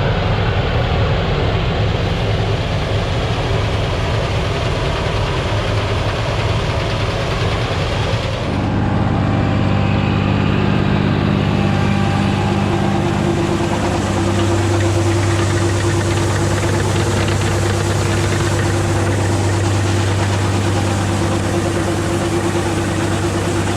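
Diesel engine of farm harvest machinery running steadily, a continuous low hum whose tone changes abruptly about eight seconds in.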